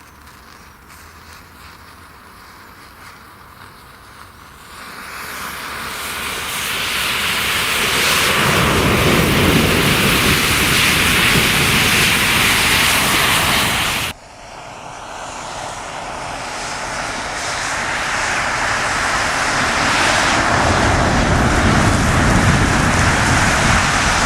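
A mass of match heads flaring in a chain reaction: a faint crackling fizz swells into a loud, steady rushing roar as thousands of matches catch. The roar breaks off abruptly about 14 seconds in, then builds again.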